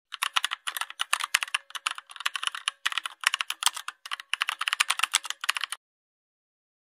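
Typing on a computer keyboard: rapid runs of sharp key clicks in short bursts with brief pauses, stopping abruptly near the end.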